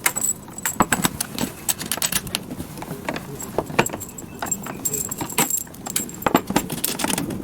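Irregular clicks and light clatter of plastic connectors and cables being handled as laser pad leads are plugged into the sockets of a cavitation beauty machine.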